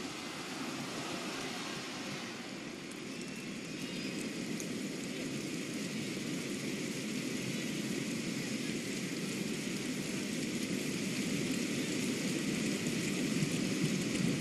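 Football stadium crowd noise: a steady murmur of the crowd, slowly growing louder.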